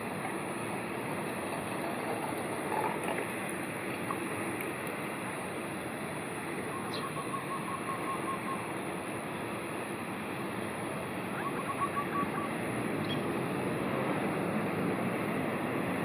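Steady rushing outdoor background noise. Twice in the middle comes a faint run of rapid ticks.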